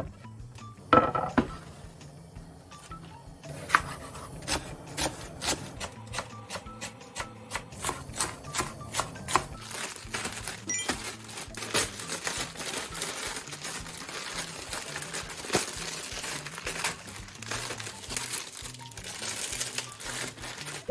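Plastic instant-ramen packets being handled and torn open one after another: crinkling and rustling with many sharp crackles and clicks. A wooden knock about a second in, and soft background music under it all.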